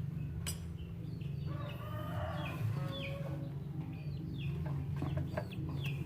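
Chickens clucking nearby, a run of short falling calls, over a steady low hum. A sharp click comes about half a second in.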